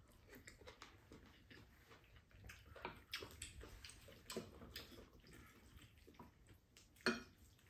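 Quiet table eating sounds: wooden spoons clicking and scraping against ceramic rice bowls, with soft chewing, and one sharper click near the end.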